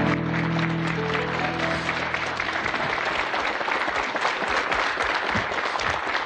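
Studio audience applauding, over studio music that ends on a held chord and fades out within the first three seconds.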